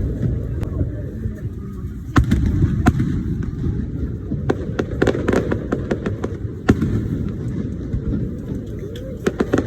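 Aerial fireworks bursting: a series of sharp bangs over a continuous low rumble of booms, with quick clusters of crackling reports about halfway through and again near the end.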